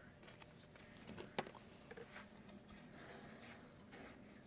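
Faint rustling and light ticks of trading cards and a booster pack being handled, with one sharper tick about a second and a half in.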